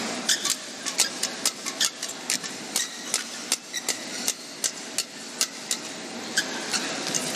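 Badminton rackets striking shuttlecocks in a pre-match knock-up: sharp, irregular hits about three a second over steady hall noise.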